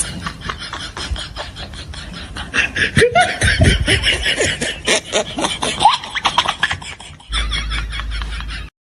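A comic meme sound effect made by a voice: a fast run of clicks like beatboxing, mixed with snickering laughter and a few quick pitch glides. It cuts off abruptly near the end, and a short different clip follows.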